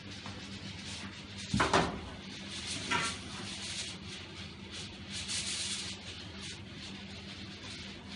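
Oven door and metal pizza pans on the oven racks being handled: a loud scrape and clunk about one and a half seconds in, a shorter knock around three seconds, and softer rubbing later, over a steady low hum.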